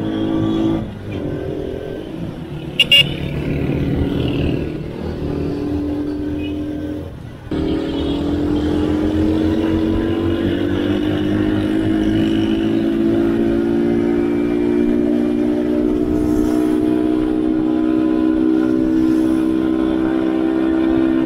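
DYL Dhoom YD 70's 70cc four-stroke single-cylinder engine being throttled on the move with two riders aboard. Its note drops briefly twice, about a second in and about seven seconds in, as at gear changes, then climbs slowly and steadily in pitch as the bike accelerates. A brief loud sharp sound about three seconds in.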